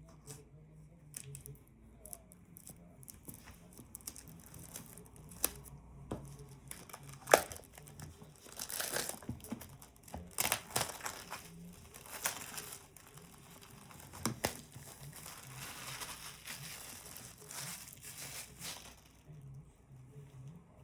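Unboxing packaging being handled and opened: crinkling and tearing with scattered sharp clicks, busiest from about four seconds in until near the end, with one loud click a little past the middle.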